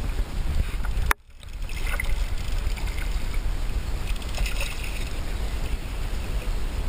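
Wind rumbling on the microphone beside a river, with one sharp click about a second in after which the sound drops out briefly. Faint splashes come from a hooked barbel thrashing at the surface.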